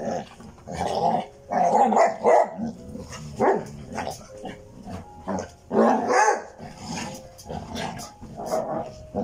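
Two basset hounds wrestling, growling and barking at each other in irregular loud bursts, with the most sustained run about a second or two in and another around six seconds.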